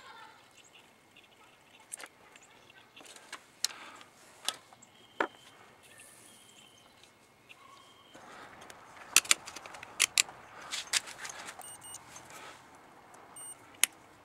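Small sharp clicks, taps and rustling from handling wires and small tools on a wooden workbench, with a busier run of loud metallic clicks about nine to eleven seconds in.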